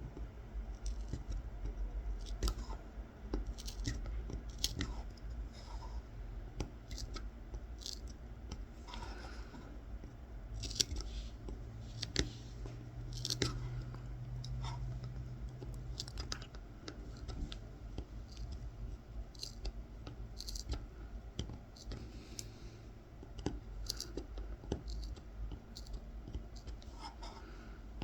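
Small kolrosing knife scoring fine lines into a wooden coffee scoop: short, irregular scratchy cuts and clicks as the blade is drawn through the wood.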